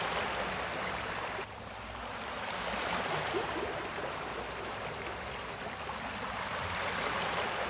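Recorded sea waves washing in, a steady rushing that drops off suddenly about a second and a half in and then swells back up as the next wave comes in.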